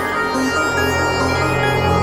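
Electronic background music with a held low bass note under sustained synth tones.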